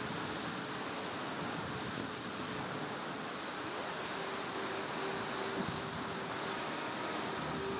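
Steady rushing of air and the whine of an E-flite A-10 RC jet's twin electric ducted fans, picked up by a camera mounted on the plane in flight. A faint steady tone comes in about halfway through.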